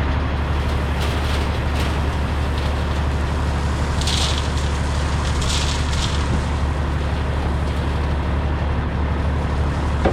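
Heavy truck's diesel engine running steadily, with two short hisses about four and five and a half seconds in.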